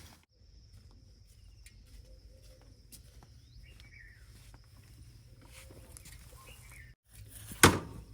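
Faint outdoor ambience: a low hum and a steady high thin tone, with a few bird chirps near the middle. A single sharp knock comes near the end.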